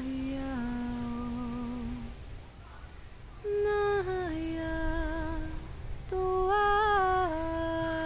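A woman sings wordless 'light language': long held notes that step between pitches with a slight waver, in three slow phrases. There is a short pause for breath about two seconds in.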